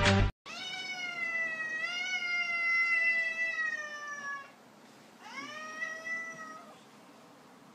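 A house cat giving two long, drawn-out meows as a hand pats its head: the first lasts about four seconds, and the second, about a second later, is shorter, rising then falling.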